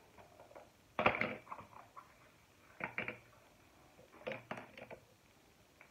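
Three short clusters of clicks and knocks, about a second in, near the middle and past the middle: small objects such as makeup containers and tools being handled and set down on a tabletop.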